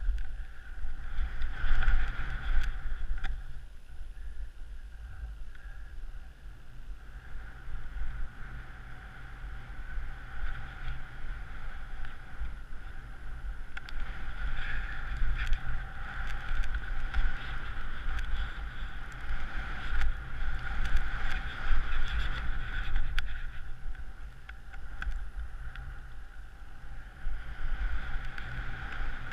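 Wind buffeting an action camera's microphone while skiing, a low rumble that rises and falls, with skis hissing over the snow.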